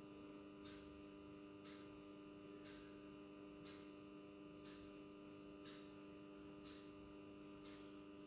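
Near silence: a steady low electrical hum, with a faint soft tick about once a second.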